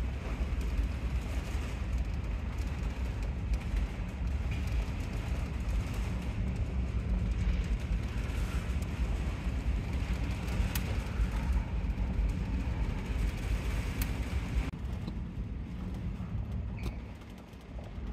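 Steady low rumble of a ferry under way, heard on board. About three-quarters of the way through it turns duller and a little quieter.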